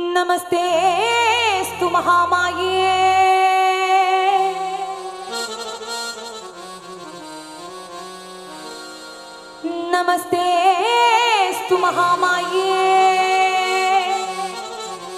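A woman singing wordless, unmetered devotional phrases (a bhajan alaap) over a sustained harmonium. There are two phrases. Each opens with quick ornamented turns of pitch and then settles into long held notes. The second phrase begins about ten seconds in.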